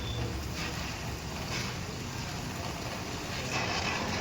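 Motor vehicle noise: a steady rushing hum with a low rumble, swelling briefly a couple of times.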